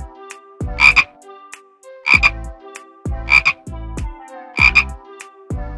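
A frog croaking: four loud croaks about a second and a quarter apart, with lower, falling sounds in between.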